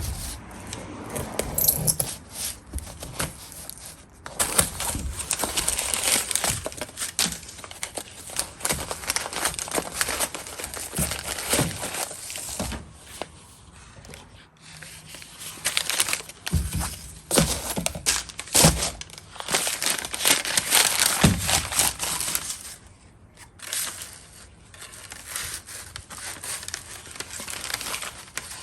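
A cardboard box being opened by hand: tearing, with crinkling and rustling of the packing, coming in irregular bursts with sharp clicks and handling knocks.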